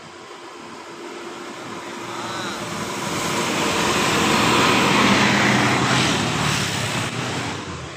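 A road vehicle driving past: engine and tyre noise swell to a peak about five seconds in, then fade away.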